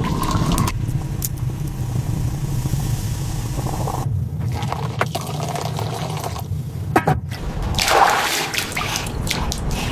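Water running and splashing, with a few knocks.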